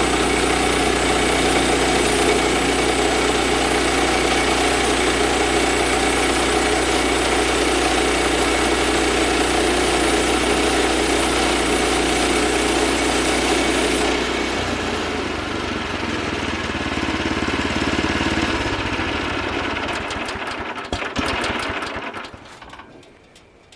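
Woodland Mills HM122 portable bandsaw mill running at full throttle while sawing a board off a log. About fourteen seconds in the sound drops and changes, and near the end the engine slows down and shuts off.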